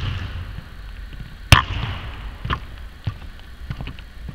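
Basketball bouncing on a hardwood court in a large empty arena: several separate bounces, each ringing on in the hall's echo. The loudest comes about a second and a half in, with softer ones after.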